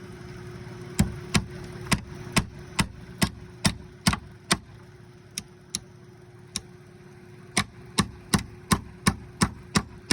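Hand hammer driving nails into a roof anchor: sharp blows at about two a second, a run of about nine, a few spaced strikes, then another fast run near the end. A steady low hum runs underneath.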